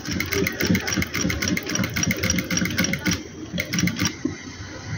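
Industrial lockstitch sewing machine stitching a seam through layered fabric, its needle ticking quickly and evenly. It stops about three seconds in, runs again briefly, then stops near the end.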